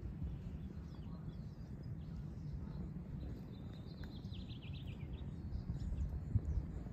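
Low, fluttering rumble of wind on the microphone, with small birds chirping and a quick run of falling chirps about four seconds in.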